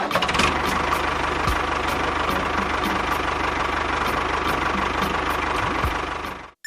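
An engine idling steadily with a regular ticking knock, about four a second, over a steady whine. It fades out near the end.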